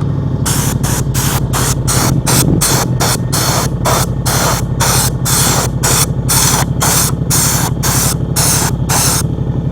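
Air-powered spray gun spraying bed-liner coating, starting about half a second in, its hiss coming in rapid pulses about three a second. A steady engine hum runs underneath.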